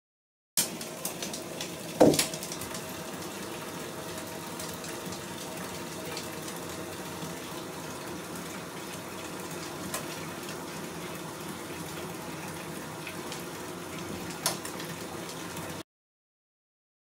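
A bath bomb plops into a bathtub full of water about two seconds in, the loudest sound, followed by a steady watery hiss with a few small knocks.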